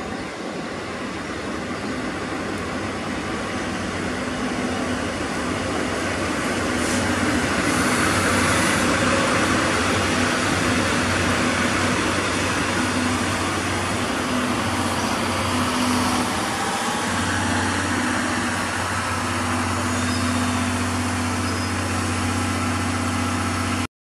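DD51 diesel locomotive's engines running as it moves slowly past at close range: a steady low drone that grows louder around the middle and again for the last several seconds, then stops abruptly near the end.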